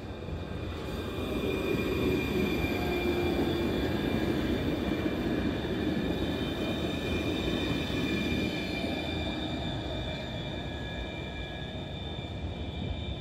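Alstom RegioCitadis tram passing close by on street track: wheels running on the rails with a steady high-pitched whine over the rumble. It swells over the first few seconds, then slowly fades as the tram moves away.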